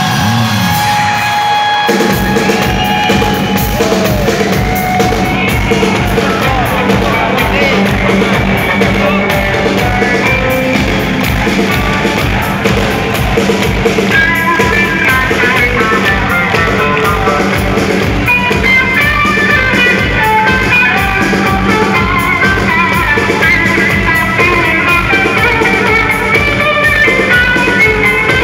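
Live rock band playing loud, with electric guitar and drum kit. Guitar tones ring out alone at first, and drums and bass come in about two seconds in.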